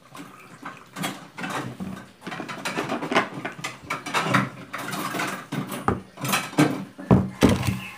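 Close handling noise from a plastic flask being picked up, moved and set down on a table among cups: a run of knocks and rustles, loudest near the end.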